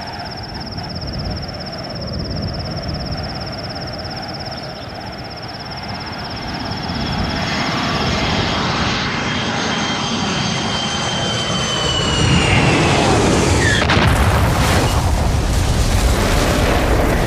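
A high steady buzz, then an aircraft-like whine that falls in pitch and grows louder over several seconds, ending in an explosion about fourteen seconds in, with the blast's rumble carrying on after it: a dramatised crash of a flying craft.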